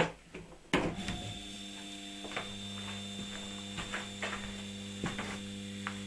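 Hotpoint washing machine's three-phase induction motor, fed 110 V single phase through a 16 µF phase-shift capacitor, starting after a couple of sharp clicks and then running with a steady electrical hum. A few light ticks sound over the hum.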